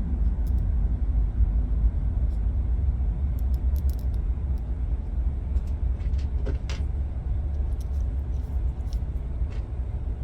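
A steady low rumble of background noise, with a few faint light clicks and taps from a small screw, Allen key and plastic hub parts being handled.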